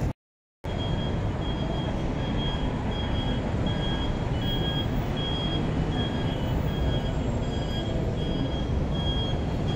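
Steady noise of city street traffic below. A high electronic beep repeats about twice a second over it, and the audio drops out completely for about half a second right at the start.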